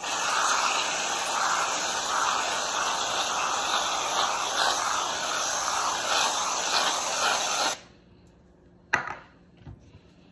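Aerosol whipped-cream can spraying, a continuous hiss that cuts off abruptly after about eight seconds. A single sharp knock follows about a second later.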